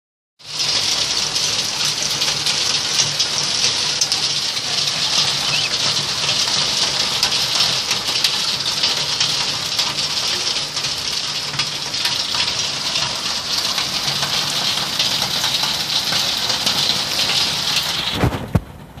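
Heavy rain pouring down, a dense steady hiss, which cuts off suddenly near the end, followed by two short knocks.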